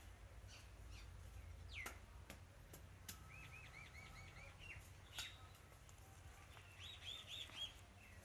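Indian ringneck parrot making faint sharp clicks and soft rapid chirps: a falling whistle, a run of about six quick chirps, then a higher run of about five near the end.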